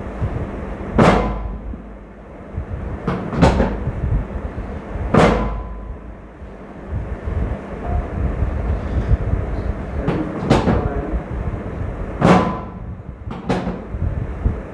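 About eight sharp thumps during a chiropractic treatment, at irregular intervals and some in quick pairs, over a steady low rumble.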